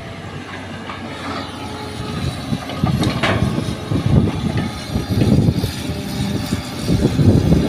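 Diesel engines of a Hitachi hydraulic excavator digging soil and of dump trucks waiting nearby, a low, uneven rumble that grows louder from about three seconds in.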